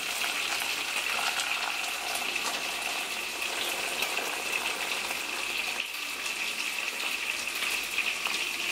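Boiling water poured steadily from a kettle into a small pan of tomatoes, splashing as it fills the pan, to loosen the tomato skins for peeling.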